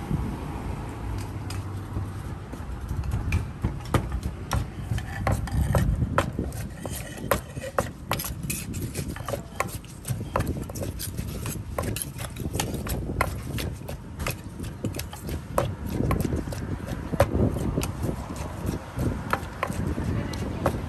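Kitchen utensils clicking and scraping irregularly against a bowl or mortar as a salad is mixed, over a steady low rumble.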